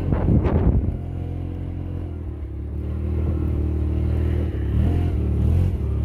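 Tractor engine running steadily. It slows to a lower, quieter note about a second in and picks up again about three seconds in. A short rush of noise comes at the very start.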